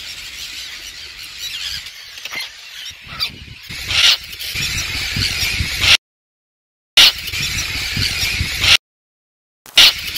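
A colony of common terns calling over and around the listener, a dense chorus of harsh, high, grating calls with a few louder ones close by: alarm calls of terns mobbing an intruder in their colony. A low rumble of wind on the microphone runs underneath, and the sound drops out completely twice for about a second.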